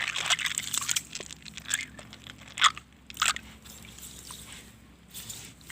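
Blood cockle shells clacking and grating against each other as they are washed by hand, a run of irregular sharp clicks and rattles, with two louder knocks about two and a half and three seconds in.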